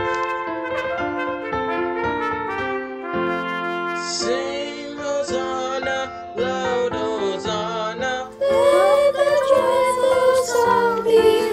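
Music: a trumpet playing a melody, with young voices singing from about four seconds in, louder from about eight and a half seconds.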